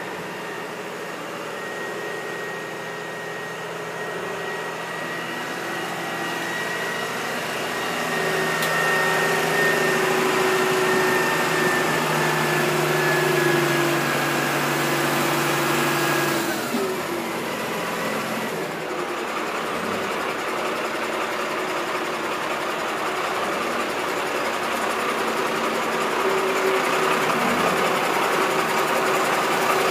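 Truck-mounted crane's engine running under load during a lift, held at raised revs that slowly sag, then dropping sharply in pitch about halfway through and running on at a lower, steady speed.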